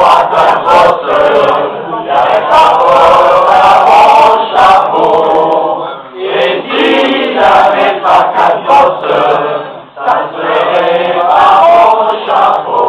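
A group of voices singing together in a choir-like chant, in three long phrases with short breaks about six and ten seconds in.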